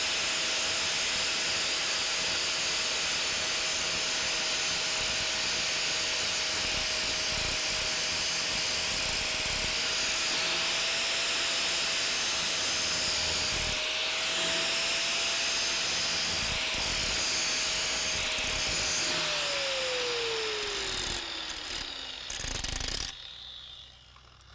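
DeWalt angle grinder with a grinding wheel, grinding a flat landing (root face) onto the bevelled knife edge of a steel plate: a steady motor whine with a loud grinding hiss. Near the end the grinder is switched off and winds down, its pitch falling over a few seconds.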